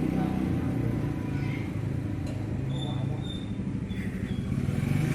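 An engine running steadily with a low hum, with a few faint short high-pitched chirps about three to four seconds in.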